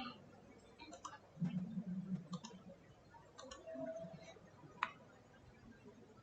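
Faint computer mouse clicks, a handful of separate clicks spaced irregularly over a few seconds, over low room noise.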